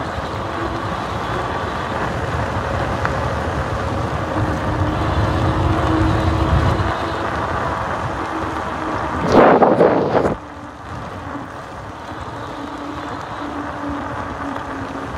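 Small motorcycle engine running under way with wind rushing over the microphone; the engine note builds until about seven seconds in, then eases off. About nine seconds in, a loud rush of noise lasts about a second and stops abruptly, and the ride continues more quietly.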